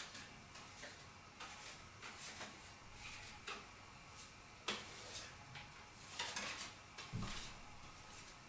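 Faint handling of playing cards: light rustles, clicks and taps as cards are picked off a stack on a wooden table and fitted onto a house of cards. A sharper click comes about halfway through, and a soft thump about seven seconds in.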